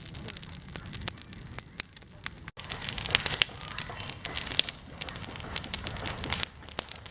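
Open cooking fire crackling, a dense run of sharp pops and snaps that grows louder after a sudden break a little way in.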